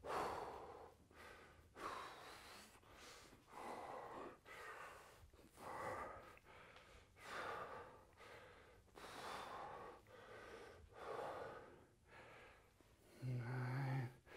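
A man breathing hard through a set of barbell Bulgarian split squats, a heavy breath roughly every two seconds, one with each rep. Near the end he lets out a short voiced grunt.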